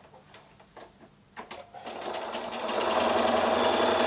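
Bernina sewing machine starting up after a few light clicks, picking up speed and then running steadily as it stitches a seam line through quilting fabric.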